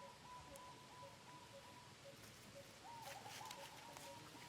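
Near silence with faint distant bird calls: a thin, steady high note and a soft short note repeating a few times a second beneath it, with a few light clicks about three seconds in.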